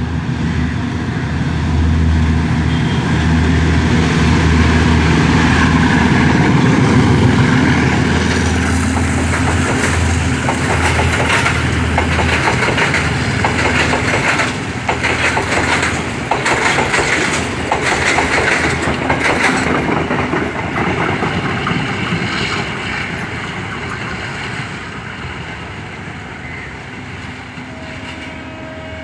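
A diesel locomotive-hauled passenger train passing close: the locomotive's engine drone is loudest for roughly the first dozen seconds, then the coaches' wheels clatter over rail joints in quick clicks, and the sound fades away over the last several seconds.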